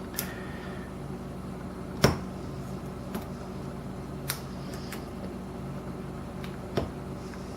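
A lock pick clicking against the pins of a Lockwood 301/63 padlock under tension: about five short, sharp clicks spread over several seconds, the loudest about two seconds in, over a steady low hum.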